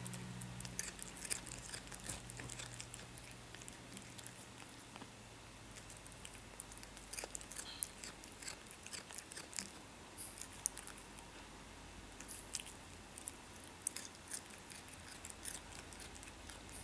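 A cat chewing diced cucumber: irregular crunching clicks that come in clusters as it bites and chews the pieces.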